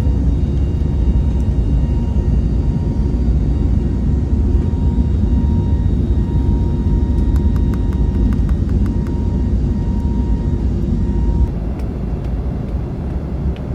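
Airliner jet engines and rumble heard from inside the cabin as the plane takes off: a loud, steady low roar with a faint thin whine over it. A quick run of ticks comes in the middle, and the roar drops a little about two seconds before the end.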